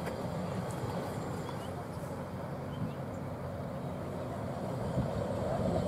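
Hi-rail maintenance pickup truck driving along the rails, a steady low rumble of its engine and wheels.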